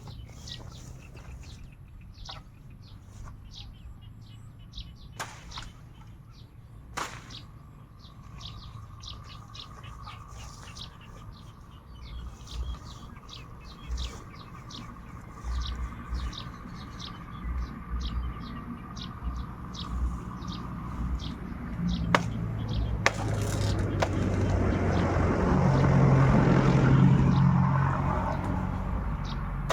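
Birds chirping, with a few sharp knocks. Near the end a motor vehicle passes, its low hum swelling and then fading.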